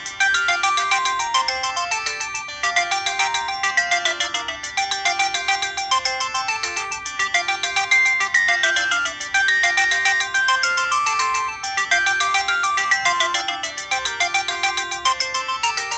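A preloaded ringtone playing on a Casio G'Zone Boulder phone: a synthesized tune of quick, short notes over a lower line of longer notes.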